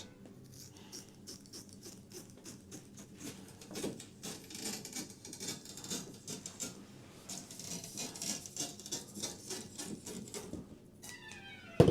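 Scissors cutting across charcoal window screen mesh: a long, irregular run of faint snips and rustling of the mesh.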